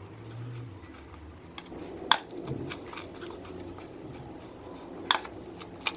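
Metal spoon clicking against a plastic bowl as it presses and scrapes a lump of acetone-softened styrofoam. There are two sharp clicks, about two and five seconds in, and a few fainter ticks.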